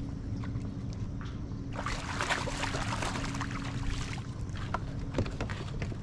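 Water sloshing and splashing around a fishing kayak over a steady low hum, with a few sharp knocks and clicks near the end.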